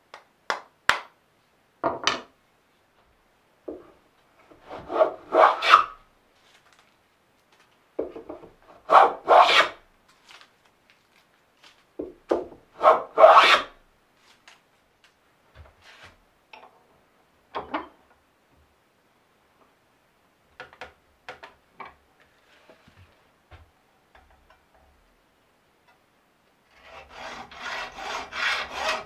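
A few sharp hammer taps on a wooden hand plane to set its blade, then three long strokes of the wooden plane shaving a board, with some light knocks. Near the end a hacksaw cuts through a steel screw held in a vise with rapid back-and-forth strokes.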